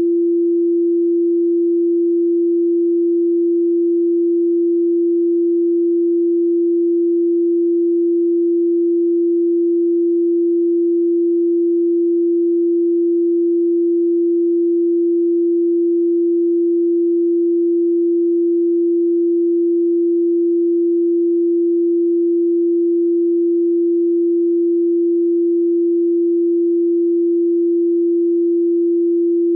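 Pure 341.3 Hz sine tone, one steady unbroken pitch held at a constant level.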